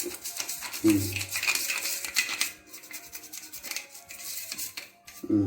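Stiff brush scrubbing a small plastic washing-machine filter part in rapid scratchy strokes, loosening lint and dust. The scrubbing eases off about halfway through, and a low thud sounds about a second in and again near the end.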